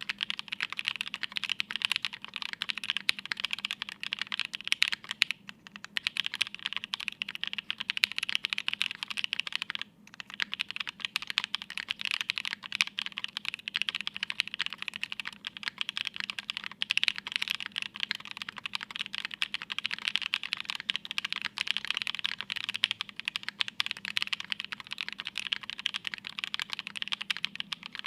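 Continuous fast typing on a plateless Nue mechanical keyboard with lubed Creamsicle linear switches (tangerine housings, cream stems) and GMK keycaps, with no foam inside. There are brief pauses about five and ten seconds in.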